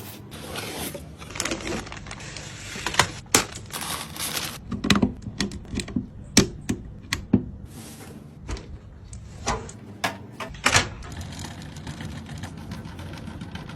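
Irregular clicks, taps and knocks of computer hardware being handled and fitted together during a PC build, with short stretches of rustling.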